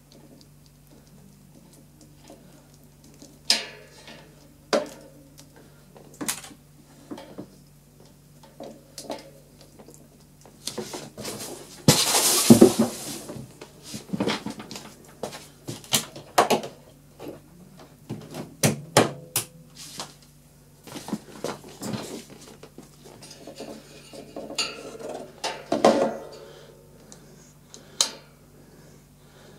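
Hard plastic parts of a desk fan clicking and knocking together as they are handled, with a louder rustling scrape about twelve seconds in, over a faint steady low hum.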